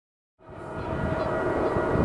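Canadian Pacific GE ES44AC diesel locomotive running, fading in from silence about half a second in and settling into a steady low rumble with a held whine over it.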